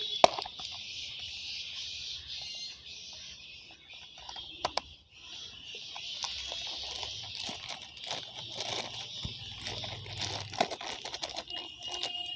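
Plastic fish bag crinkling and rustling in the hands as it is handled, with irregular small crackles that grow denser in the second half. There is one sharp click just after the start, over a steady high hiss.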